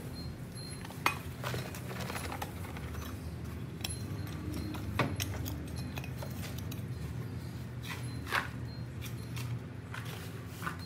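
Small metal hand trowel scraping and scooping soil in a glass tank, with scattered clicks and a few sharper clinks about a second in, midway and near the end, over a steady low hum.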